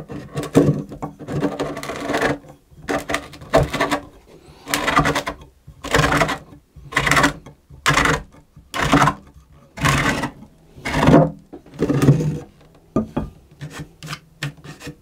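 A tapered, spiral-fluted reamer is being turned by hand in a cello's end pin hole, scraping and cutting the wood in rasping strokes about once a second. It is enlarging a hole too small for the end pin. The strokes thin out near the end.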